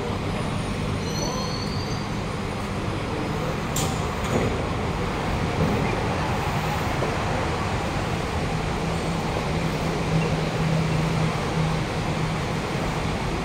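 Kawasaki-CRRC Sifang C151A metro train standing at the platform with its doors open: a steady hum from its running equipment under the general noise of a crowded platform, with faint passenger voices. The hum grows a little stronger near the end, and there is a brief click about four seconds in.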